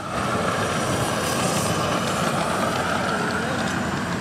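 Ride-on 7.5-inch gauge live steam locomotive running along the track, a steady hissing rattle.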